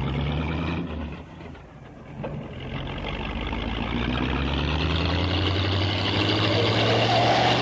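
A car engine running and revving, its pitch sliding up and down, with a dip in level about a second and a half in before it builds again.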